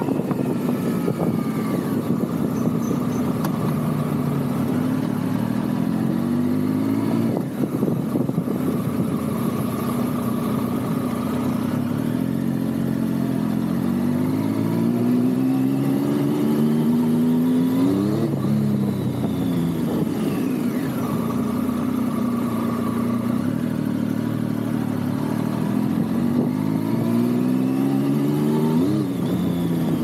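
Triumph Tiger 1050 Sport's inline three-cylinder engine breathing through an SC-Project SC1-R titanium muffler, riding and accelerating hard. Its pitch climbs steeply, drops back and climbs again several times, as it revs up and shifts.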